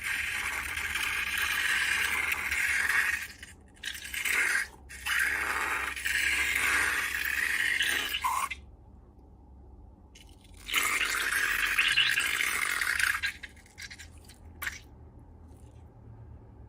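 Scraping in three long stretches of a few seconds each, separated by short pauses, with a few isolated clicks after the last one.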